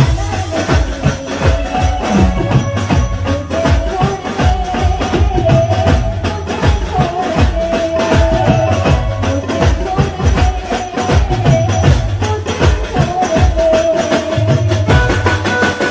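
Hindi love-song ringtone music: a fast, busy percussion beat over a bass line, with a melody line held above it.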